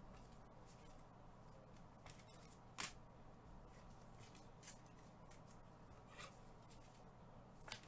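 Near silence: room tone with a low hum and a few faint, scattered clicks or taps, the loudest about three seconds in.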